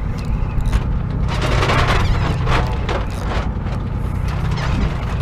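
Steady low rumble of a fishing boat's engine at sea, with rushing wind and water noise that swells between about one and three and a half seconds in.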